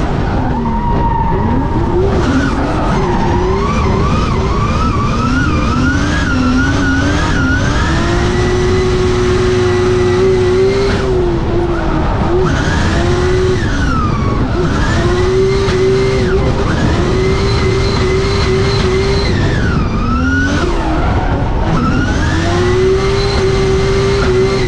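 Drift car's engine heard from inside the cabin on a drift run. About two seconds in, the revs rise and fall in a quick jagged run; after that they are held high for several seconds at a time and drop sharply three times, over steady tyre noise from the sliding tyres.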